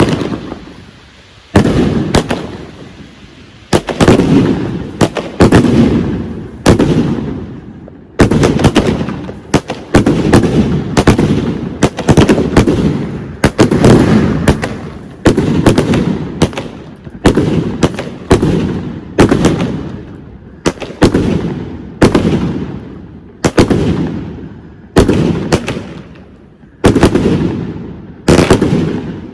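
Fireworks exploding: a long run of loud, sharp bangs, about one to two a second, each trailing off in a rolling echo.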